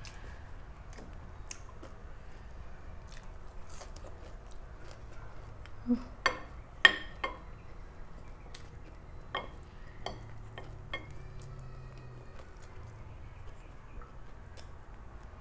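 Wooden spoon and fork clicking and scraping on a ceramic plate while eating, scattered light knocks with a cluster of sharper ones about six to seven seconds in.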